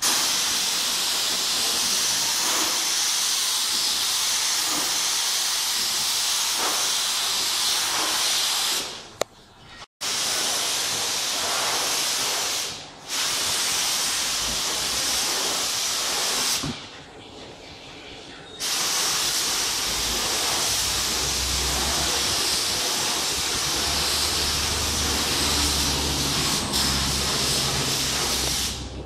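Compressed-air gravity-feed spray gun hissing steadily as it sprays lacquer onto a wooden boat hull, in long stretches broken by three short pauses where the spray stops. A low hum comes in during the second half.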